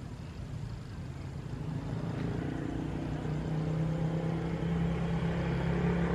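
Motor vehicle engine running at a steady pitch, growing steadily louder as it approaches.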